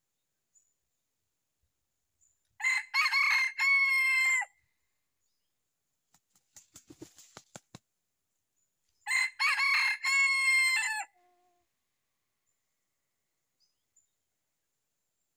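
Junglefowl rooster crowing twice, each crow about two seconds long. Faint rustling clicks come between the two crows.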